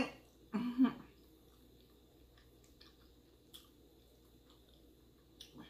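Faint chewing and mouth sounds, with a short vocal sound about half a second in. A few soft clicks follow later, from a plastic spoon scooping in a plastic takeout container.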